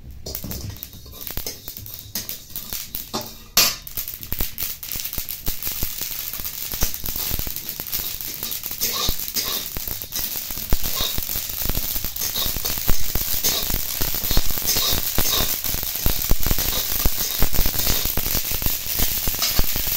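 Sesame seeds dry-roasting in an iron kadai and stirred with a metal spatula: a dense crackle of seeds popping and rattling against the pan, with the spatula scraping the iron. The crackle is sparse at first and grows busier after about four seconds.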